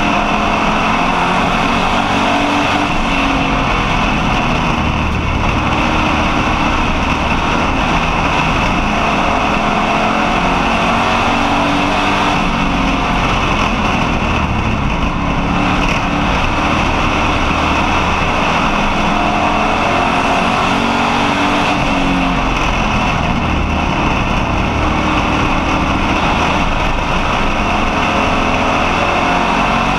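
Street stock race car's engine running hard at racing speed, heard from inside the car, its pitch rising and falling repeatedly with the throttle over a loud steady din of road and wind noise.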